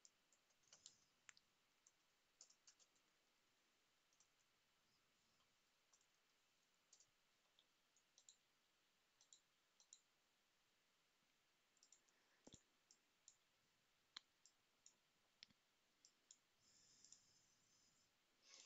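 Near silence broken by faint, irregularly spaced computer mouse clicks.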